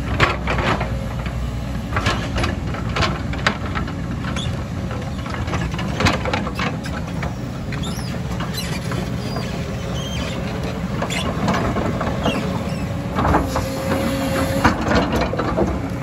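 JCB tracked excavator working: its diesel engine runs steadily while the bucket scrapes through rubble, with repeated clatters and knocks of rock on steel throughout and a thin steady whine at times.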